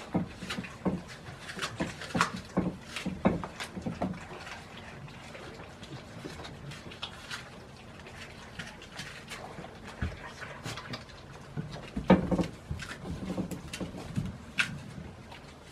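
Goats snuffling and chewing as they eat treats from a hand, with many short clicks and rustles. The sounds are busiest in the first few seconds and again about twelve seconds in.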